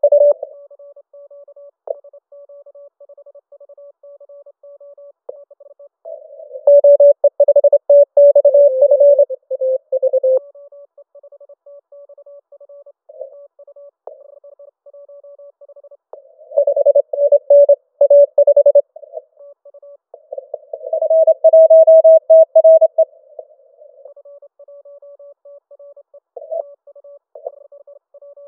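Morse code (CW) from a Yaesu FT-891 ham transceiver: a single beeping tone keyed in quick dits and dahs, faint and steady most of the time. Three much louder stretches of keying break in, about six seconds in, at about sixteen seconds, and again just after twenty, the last one slightly higher in pitch.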